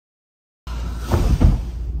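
Dead silence, then rustling and handling noise starting suddenly with a few soft thumps about a second in, over a low steady hum.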